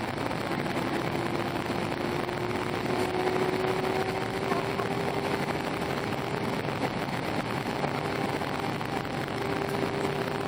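Airbus A319 jet engines and airflow heard from inside the passenger cabin: a steady roar with a low engine tone that rises slightly in pitch in the first half, then holds.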